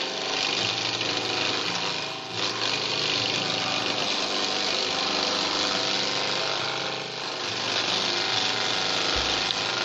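Motorized forage chopper (chaff cutter) running and shredding Napier grass stalks as they are fed by hand into its chute: a loud, dense chopping noise that dips briefly about 2 s and 7 s in.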